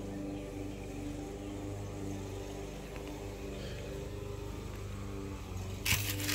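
A steady low hum runs throughout. Near the end, white tissue paper in a sneaker box crinkles loudly as it is pulled back from the shoes.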